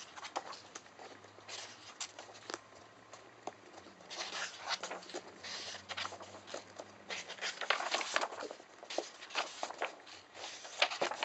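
Paper pages of a paperback workbook turned by hand one after another: repeated bursts of paper rustling with light crackles, several page turns in a row.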